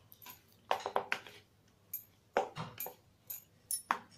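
A metal fork mixing spiced mashed boiled potato in a bowl, clinking and scraping against the bowl in several short, irregular clusters of taps.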